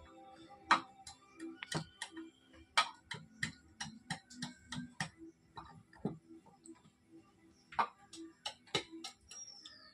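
Irregular sharp taps and knocks of hand carving tools on neem wood, some much louder than others, over soft background music.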